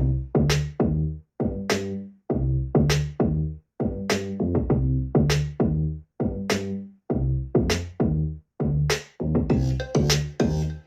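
Bogasing G4 portable Bluetooth speaker playing an electronic track at maximum volume in its 3D EQ mode: a drum-machine beat with deep bass notes, in short choppy stabs with brief silent gaps between them.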